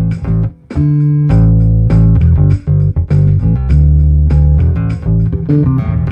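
Electric bass played through a Traynor YBA300 all-tube bass amp head, the miked cabinet blended with the DI signal, over a drum loop from a pedal. The bass lines are deep and clean, with a brief break in the playing about half a second in.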